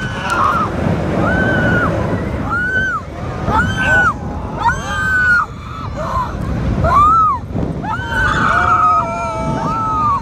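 A woman screaming in terror on a roller coaster: a string of about ten short, high screams roughly a second apart, over wind rushing across the microphone.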